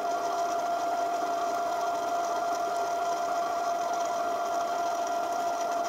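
Brother PC-420 sewing machine's bobbin winder running, its motor giving a steady, unchanging whine as the bobbin fills nearly to full.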